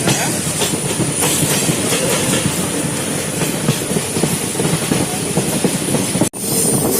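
Passenger train running, heard from aboard a coach: a steady rumble with the clatter of wheels on the rail joints and a thin high whine. The sound cuts out for an instant about six seconds in.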